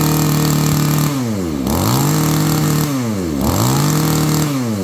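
Mitsubishi TB24 24cc two-stroke brush cutter engine being revved on its throttle trigger. It is held at high revs, drops back about a second in, then is revved up and let down twice more, the last drop coming near the end.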